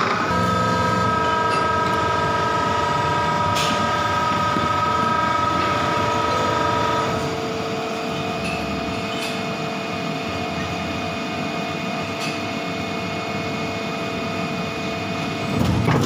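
A 100-ton Electronica Ventura injection moulding machine running through a moulding cycle with a steady whine of several tones. About seven seconds in, the whine shifts lower and quieter, with a few faint clicks.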